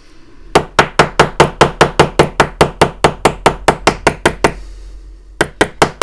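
Small watchmaker's hammer tapping a split pin through the links of a watch bracelet and its fold-over clasp, the work resting on a small steel block: a quick, even run of about twenty taps, about five a second, then a short pause and three more taps near the end as the pin is driven home.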